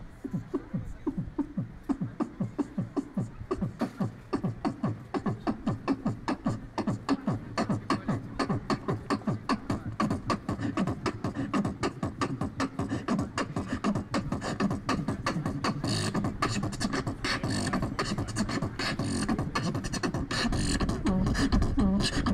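Amplified human beatboxing in a funky house style: a steady, fast kick-drum pulse made with the mouth, with hi-hat and snare sounds growing busier through the second half and getting louder near the end.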